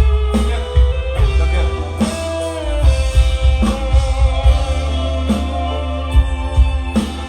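Music with a heavy bass and a regular drum beat, played loud through a sound system.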